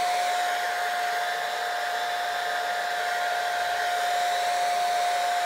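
Handheld hair dryer blowing steadily, a constant whine over the rush of air, drying the holding spray on a wig's lace at the hairline.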